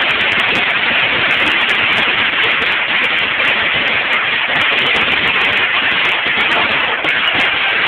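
Street pyrotechnics burning on the road: a loud, steady hissing crackle with many irregular sharp ticks.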